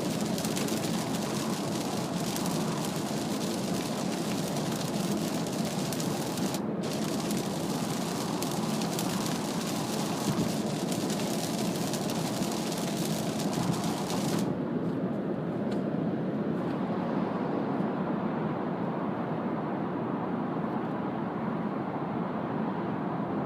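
Cabin noise of a Mazda CX-3 at expressway speed in heavy rain: steady hiss of tyres on the wet road and rain on the body. About 14 seconds in, the high hiss of rain and spray cuts off suddenly, leaving a lower steady road and engine drone.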